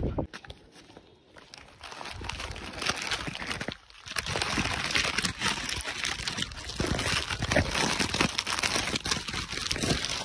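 Dense crackling and rustling noise, quieter for the first two seconds, with a brief drop just before four seconds in.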